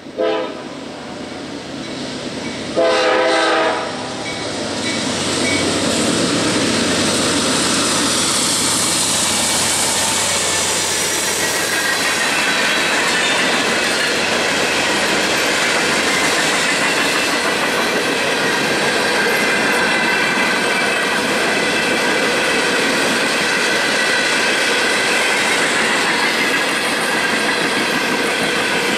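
Norfolk Southern GE C40-9W diesel locomotive blowing its horn, a short blast and then a second, longer one about three seconds in, then passing close by. The empty coal gondolas (topgons) then roll past with steady wheel clatter and a faint high ringing from the wheels.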